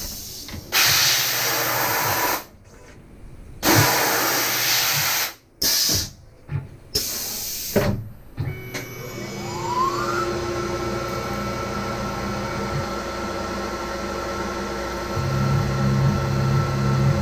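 Several loud bursts of hissing come first. About halfway through, the Tormach CNC mill's spindle spins up with a rising whine and then runs at a steady pitch. Near the end a low, regular pulsing joins in.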